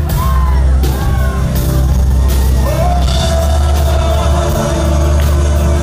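Live rock band playing a ballad with singing over it, the voice holding one long note about halfway through.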